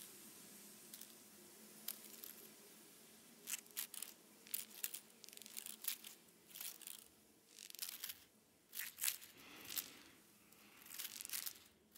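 Quiet, scattered crackling and rustling: short irregular crackles that come more often after about three seconds in, over a faint steady low hum.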